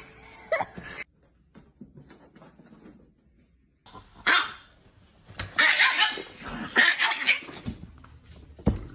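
A dog barking: a single bark about four seconds in, then a quick run of loud barks.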